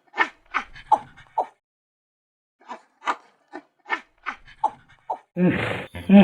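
An animal calling in a quick run of short, sharp yips, a pause of about a second, then more yips. About five seconds in comes a louder, longer call.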